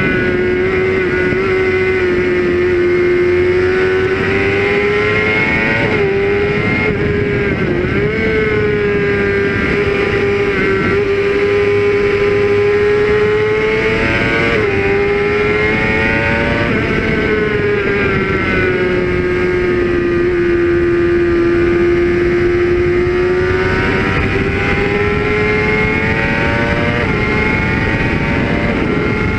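Suzuki GSX-R 600 K6 inline-four sport bike engine running at high revs under hard riding. The engine note climbs and drops repeatedly through gear changes and throttle on and off for corners.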